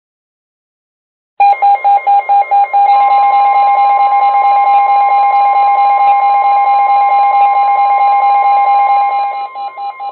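Weather alert radio sounding its alarm for a severe thunderstorm warning. A loud buzzer tone starts about a second and a half in, beeps rapidly, then holds steady. The steady, higher 1050 Hz NOAA Weather Radio warning tone comes through beneath it from about three seconds in. Near the end the buzzer breaks into beeps again and stops, leaving the warning tone.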